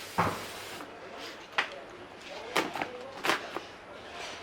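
A parcel being handled: a few short knocks and clicks, roughly a second apart.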